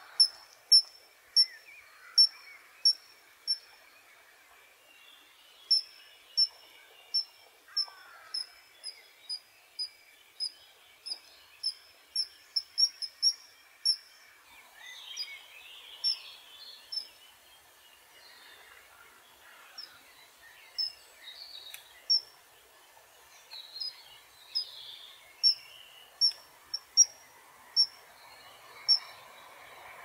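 Common kingfisher calling: a long series of short, shrill, high whistled notes, about two a second, coming in runs with brief pauses.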